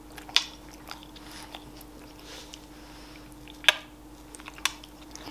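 A few sharp smacking clicks and softer wet mouth noises, as of close kisses and licking, over a steady low hum.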